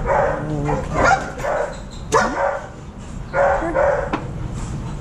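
A dog barking repeatedly in short bursts, in two groups, with a sharp click a little after two seconds in.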